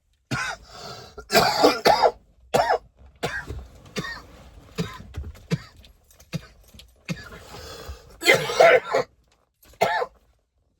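A man coughing and clearing his throat in a string of separate bursts, the hardest coughs about a second and a half in and again near the end.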